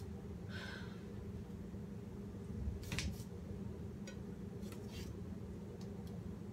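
Kitchen knife cutting lion's mane mushroom on a wooden cutting board: a few short cutting and tapping sounds, the loudest about three seconds in, over a low steady hum.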